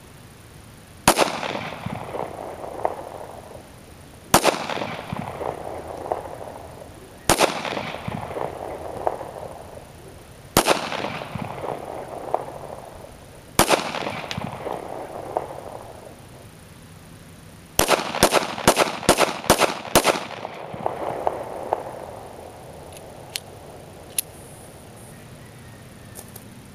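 Kel-Tec P3AT .380 ACP pocket pistol firing: five single shots about three seconds apart, each followed by a long echo, then a quick string of about seven shots fired in rapid succession.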